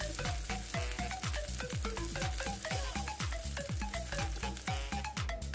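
Background music with a steady beat over shrimp sizzling in butter and sauce on a nonstick grill pan; the sizzle stops near the end.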